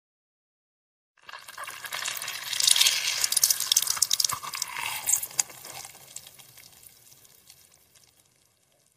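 Half a tomato squeezed and crushed in a bare hand: wet squelching of juice and pulp with many small crackles. It starts about a second in, is loudest in the middle and fades away near the end.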